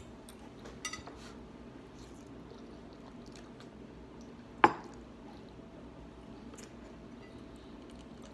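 Quiet eating sounds: a metal fork scraping and clinking on a ceramic plate of ramen noodles, with a few light clicks and one sharp clink about four and a half seconds in.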